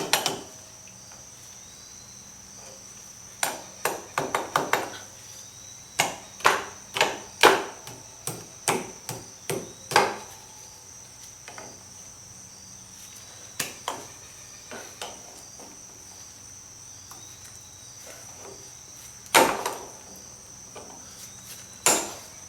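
Side cutters working a split pin out of a Rolls-Royce Phantom III rear hub nut: sharp metal clicks and taps, many in quick clusters and then a few spaced out. A faint steady high-pitched whine runs underneath.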